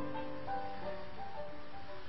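Soft background music of slow, held notes that die away in the second half, leaving a faint background hiss.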